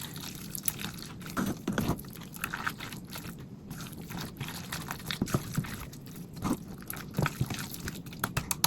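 Wet squelching and small irregular clicks of cooked pasta being mixed into a thick cheese sauce, done close to the microphone as ASMR.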